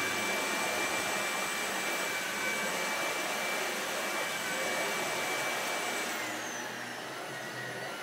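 Tineco Pure ONE S11 cordless stick vacuum running in max suction mode with its power brush head on carpet: a steady rush of air with a high motor whine. About six seconds in, the whine drops away and the sound eases a little.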